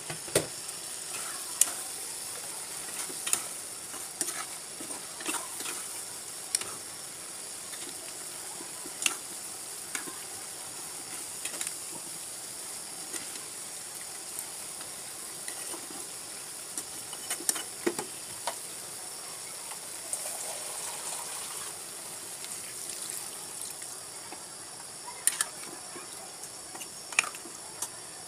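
A fish and sponge gourd curry simmers in a non-stick wok with a steady sizzle. A metal spatula stirs, scraping and clicking against the pan every few seconds, with a few quick clicks near the end.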